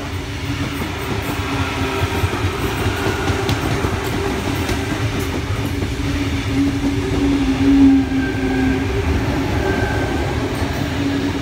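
Tangara double-deck electric train passing close along the platform: a steady rumble of wheels on rail with a low, steady motor hum that swells briefly about two-thirds of the way through.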